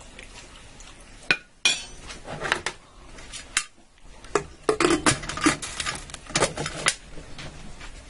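Stainless-steel stovetop pressure cooker being worked by hand. A spoon clanks twice against the pot about a second and a half in, then the metal lid clinks and scrapes in a run of knocks as it is set on and twisted to lock.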